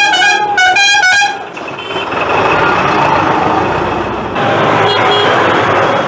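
A vehicle horn tooting three times in quick succession, then a steady rush of road and traffic noise.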